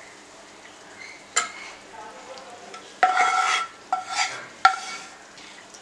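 Metal pan scraping and clinking against a steel mesh tea strainer as thick strawberry syrup is strained into a cup. There is a single clink about a second and a half in, then a ringing scrape lasting about half a second near three seconds, then three sharp ringing taps.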